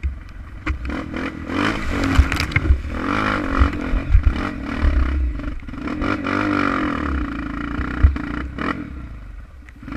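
Single-cylinder four-stroke Honda trail motorcycle running over rough ground, its engine revving up and down, with repeated knocks and rattles from the bike.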